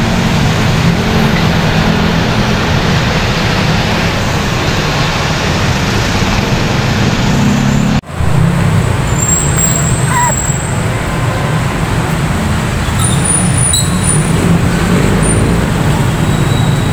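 City road traffic: buses, cars and motorcycles running past in a steady rumble, broken by a brief drop about eight seconds in.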